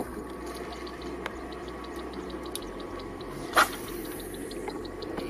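Steady wash of water noise with a faint, fast, even ticking, broken about three and a half seconds in by one sharp splash-like crack, the loudest sound.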